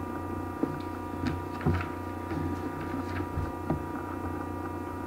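Steady electrical mains hum on the recording, with a few faint clicks and soft rustles as sheets of paper are moved.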